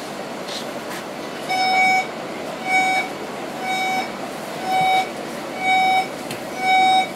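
Door-closing warning beeper on a KL Monorail train at a station stop: a steady half-second beep repeating about once a second, starting about a second and a half in, over the carriage's steady hum. It signals that the doors are about to close.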